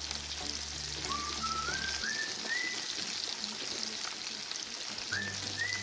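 Marinated chicken pieces deep-frying in hot oil in a kadai, a steady high sizzle, with a soft background music melody stepping up in pitch over it.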